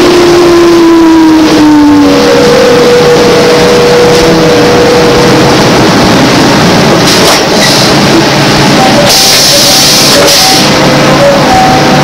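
Inside a GM 'New Look' trolleybus with Brown Boveri electric propulsion, under way. The running noise is loud and steady, the traction motor's whine drops slightly in pitch in the first two seconds, and a burst of air hiss comes about nine seconds in.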